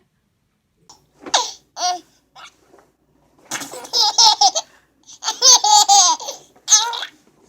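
Baby laughing in several high-pitched bursts, the longest starting about three and a half seconds in.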